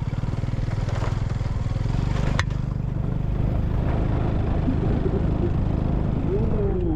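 Motorcycle engine running steadily while riding, with a couple of sharp clicks or rattles and a brief falling tone near the end.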